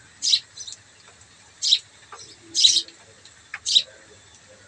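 A bird chirping: a series of short, high chirps, about one a second.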